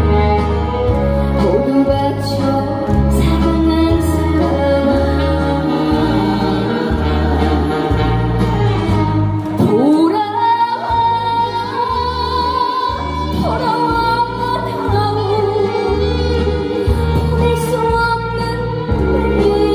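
Trot song sung live by a female singer over a backing track with a steady bass beat; about ten seconds in her voice swoops up into long held high notes.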